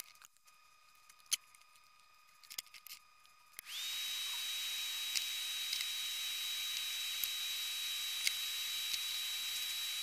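A few light clicks, then about three and a half seconds in a soldering fume extractor fan switches on. It runs with a steady hiss and a high whine that rises briefly as the motor spins up.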